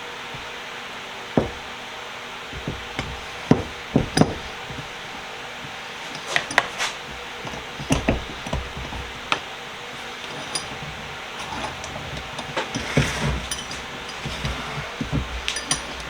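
Scattered metal clinks and knocks as a freshly reassembled Royal bench vise is handled and worked, heard over a steady background hiss.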